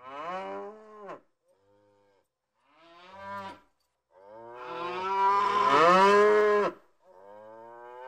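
Cows mooing: a few shorter moos, then a long, loud moo from about four seconds in, with another starting near the end.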